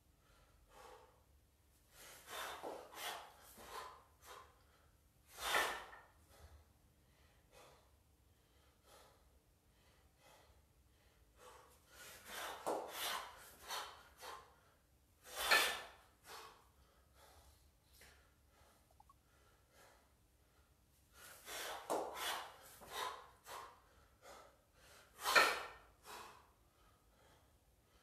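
A man breathing hard through a set of double kettlebell half-snatches. A cluster of quick breaths is followed by one loud, sharp exhale, and the pattern repeats about every ten seconds.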